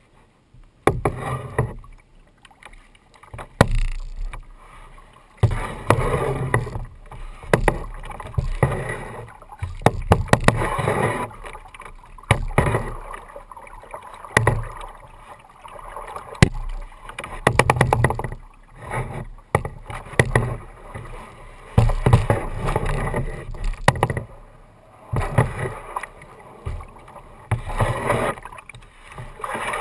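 Kayak paddling: a double-bladed paddle dipping into the water on alternate sides of a plastic kayak, a swish and splash about every two seconds, with sharp knocks now and then from the paddle against the hull.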